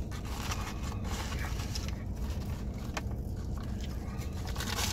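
Rustling, scraping and small clicks of food and wrappers being handled, over a steady low hum inside a car.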